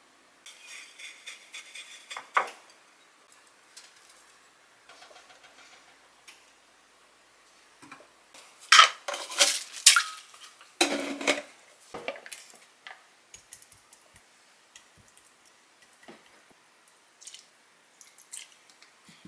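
Cookware and utensils being handled: scattered clinks, knocks and scrapes, with the loudest clatter in a cluster around the middle.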